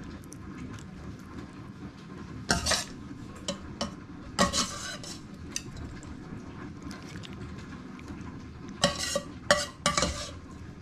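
A spoon scraping and clinking against a cooking pot in scattered strokes, a small cluster about two and a half seconds in, another around four and a half seconds, and a few more near the end, as the finished fish paksiw is stirred and dished out.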